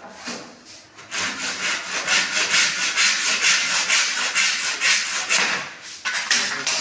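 Handsaw cutting a mitre through PVC wall moulding held in a wooden mitre box, with fast back-and-forth strokes, about four or five a second. A few light starting strokes, then steady sawing for about four and a half seconds, then a short pause and a few brief sounds near the end.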